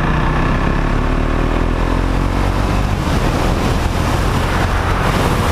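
Motorcycle engine running steadily on the move, mixed with heavy wind rush over a helmet-mounted microphone.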